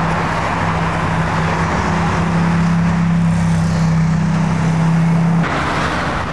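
Steady road traffic noise with a constant low hum, which cuts off suddenly near the end.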